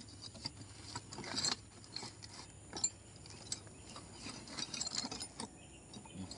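Irregular metallic clicks, taps and small rattles from hands and a tool working on the top of a stopped Stihl 070 chainsaw; the engine is not running.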